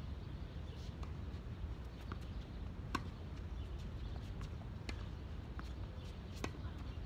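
Tennis rally on a hard court: a handful of sharp pocks of the ball off rackets and the court, the loudest about three seconds in, over a steady low rumble.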